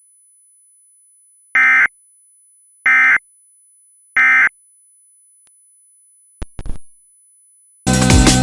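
Emergency Alert System End of Message: three short, identical bursts of digital data tones about 1.3 s apart, which mark the end of the alert. A few faint clicks follow, and music with a steady drum beat starts near the end.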